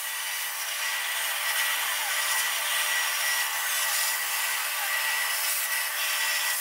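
CNC plasma cutter torch cutting steel sheet: a steady hiss with a thin high whine.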